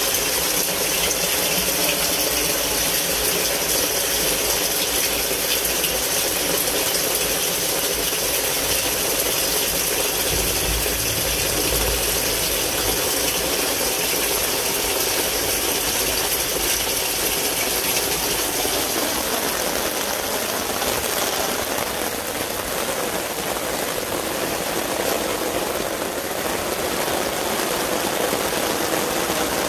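Steady downpour of heavy rain with rushing water, an even hiss and patter.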